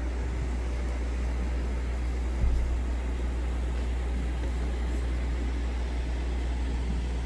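Steady low hum with a background hiss of room tone, and a soft thump about two and a half seconds in.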